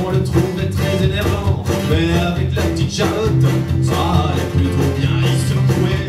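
Live country-style song: a strummed acoustic guitar with a man singing over it.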